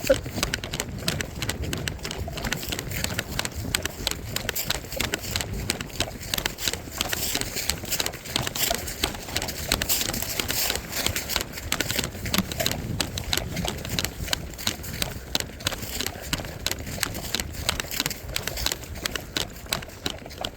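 Running footsteps through woodland brush, a fast irregular crunch and rustle of feet and gear picked up by a body-worn camera.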